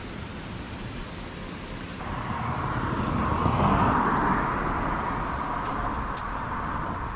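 A road vehicle passing by: its engine and tyre noise swells to a peak about four seconds in, then slowly fades.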